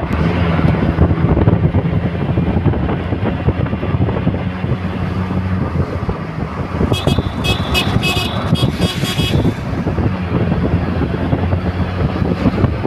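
Vehicle running along a road, heard from inside: a steady engine hum under wind and road noise. About seven seconds in, a run of short, high-pitched horn toots sounds for about two seconds.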